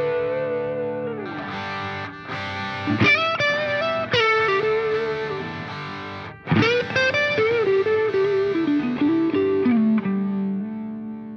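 Background music: a distorted electric guitar playing held notes with sliding pitch, fading out near the end.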